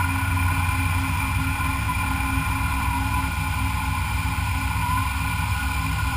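Machine tool running steadily while machining a metal part, a constant motor hum with a steady whine on top.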